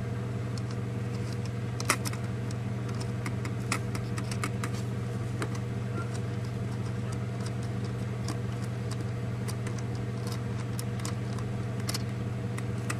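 Scattered light clicks and taps of metal mess-kit parts while the nut holding the pan's folding handle is being loosened, with one sharper click about two seconds in, over a steady low hum.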